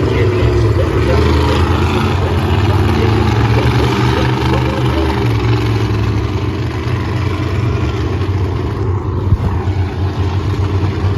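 Monster truck engines running loud and steady, with a deep rumble. A single sharp bang comes about nine seconds in.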